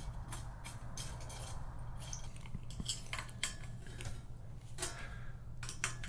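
Scattered light metallic clinks and clicks of bolts and hand tools being handled while a front basket is bolted onto a bicycle head tube, over a steady low hum.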